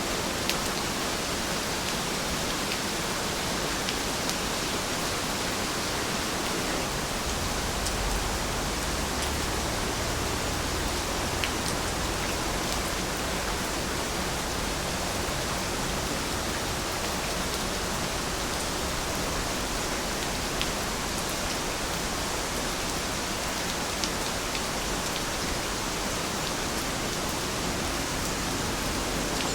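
Steady rain falling: an even hiss with a few single drop ticks standing out, and a low rumble that swells for several seconds in the first half.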